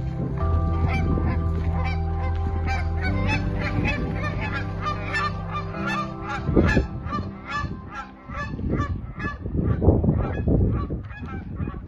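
A flock of birds calling over and over, many short calls overlapping, over low held music notes that change every few seconds and drop out about eight seconds in.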